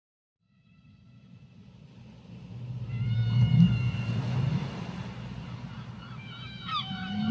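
Whale vocalizing underwater: a low moaning call swells in from silence about half a second in, with higher drawn-out wavering calls above it.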